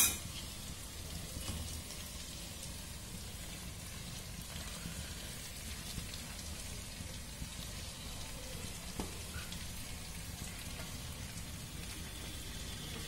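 Vegetables and scrambled egg frying in oil in a pan, giving a quiet, steady sizzle. A sharp knock comes right at the start, and a few faint clicks follow as cooked rice is tipped in.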